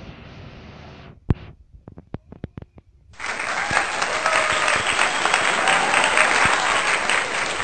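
Skateboard wheels rolling on asphalt with a steady rush that stops abruptly about a second in, followed by a few sharp knocks. Then loud applause cuts in suddenly about three seconds in and keeps going.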